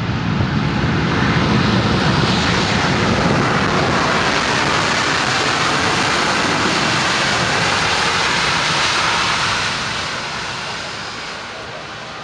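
Boeing 787 Dreamliner's twin jet engines during its landing rollout. A loud, steady rushing noise as it passes close by, which fades over the last couple of seconds as the aircraft rolls away.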